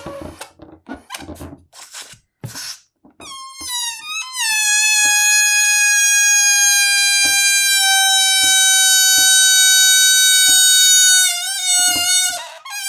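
Yellow balloon's air escaping through its stretched neck, squealing: a few short broken squeaks, then from about four seconds in one long steady high squeal held for about seven seconds, which wavers and breaks off briefly near the end.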